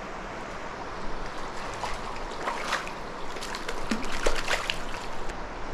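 Shallow stream rippling over rocks, with a flurry of short splashes and sloshes through the middle as a hooked cutthroat trout is landed by hand.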